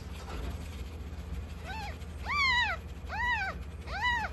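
Newborn kitten mewing: four short high cries, each rising then falling in pitch, starting a little before halfway in.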